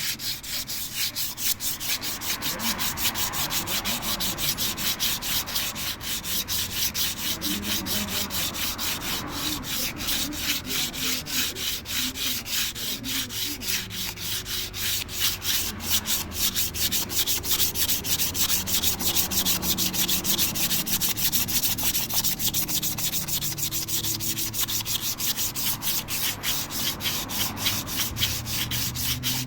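Sandpaper rubbed in quick, even back-and-forth strokes across the metal face of an engine flywheel, cleaning the surface.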